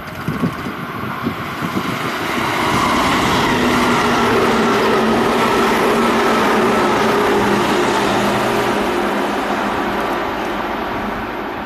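Tobu 10050 series electric commuter train passing at speed: a loud, steady rush of wheels on rail with a few faint humming tones. It swells about two seconds in and eases off near the end.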